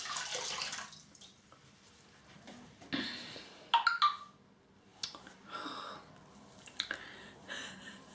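Water splashing briefly at the start. Then scattered small handling clicks and a short phone notification tone about four seconds in.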